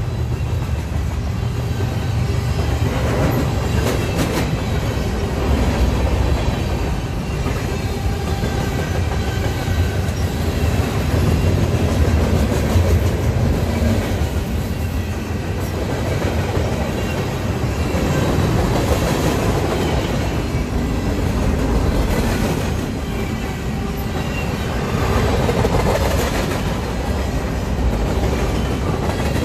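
Freight train cars rolling steadily past: a continuous rumble with the clickety-clack of wheels over rail joints, and scattered clicks.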